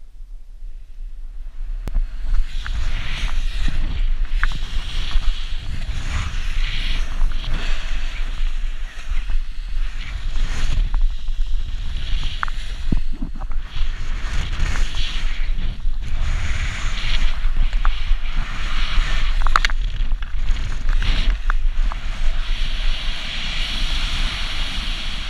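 Loud wind rushing over an action camera's microphone as a paraglider drops through a full stall, building up about two seconds in. Irregular flaps and knocks break through the rush.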